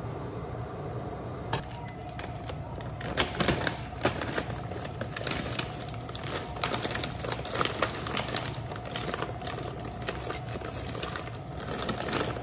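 A plastic bag of bibigo water dumplings rustling and crinkling as the dumplings are tipped out, with many small clicks and knocks as they tumble against each other and drop into the pot. A steady low hum runs underneath.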